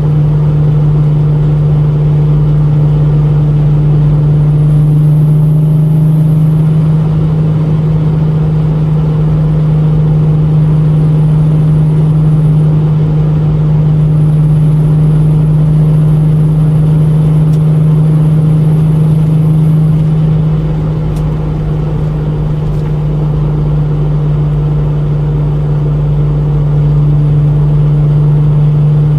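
VW VR6 24-valve engine pulling steadily under load uphill, with a ticking that the owner takes for pinging from a bad tune. The engine note holds steady, easing briefly about two-thirds of the way in.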